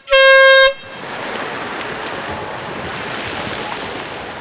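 A single short air-horn blast, about half a second long, sounding the start of a swim race. Waves then wash on the shore.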